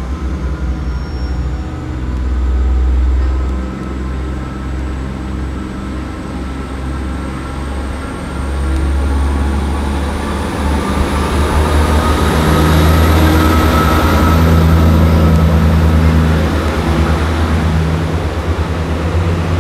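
A Class 158 diesel multiple unit coupled to a Class 143 Pacer rumbling into the platform and running past close by, its diesel engines loudest about two-thirds of the way through as the coaches go by.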